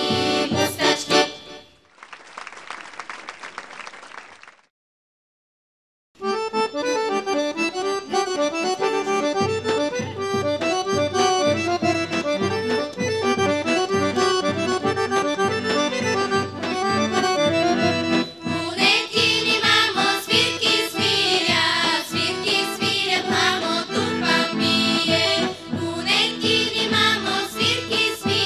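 A girls' folk choir stops singing, followed by a few seconds of applause and a brief silence. Then an accordion and a tapan (large double-headed Bulgarian bass drum) play a folk tune with a steady drum beat, and about two-thirds of the way through the choir joins in singing over them.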